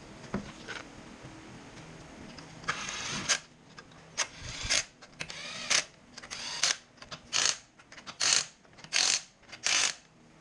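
Ratchet wrench worked in short, regular strokes, about one a second, tightening a bolt. The strokes start a few seconds in after a quieter stretch.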